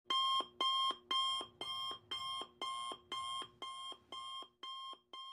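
Electronic alarm-clock-style beeping, about two beeps a second, each beep a short chord of steady tones, growing steadily fainter.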